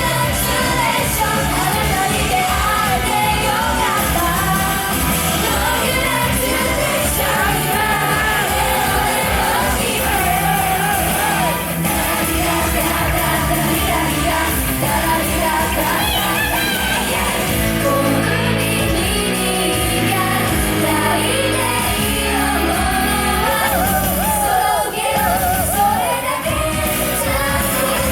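A pop song performed live in a concert hall: a group singing over a loud band backing track with a steady beat, with audience shouts mixed in.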